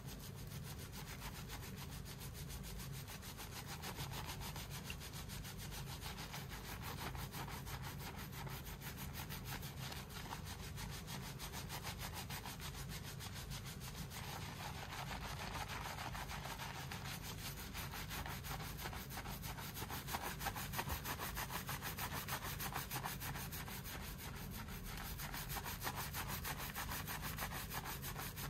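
Fingers scrubbing a shampoo-lathered head of hair, a continuous wet rubbing of foam and hair against the scalp, a little louder in the middle and later stretches.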